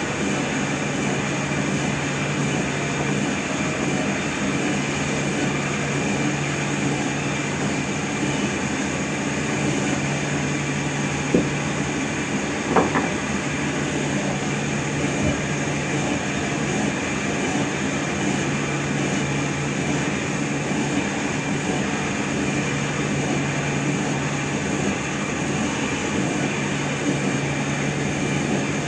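Steady machinery running with a constant hum and a high whine, broken by two short knocks about eleven and thirteen seconds in.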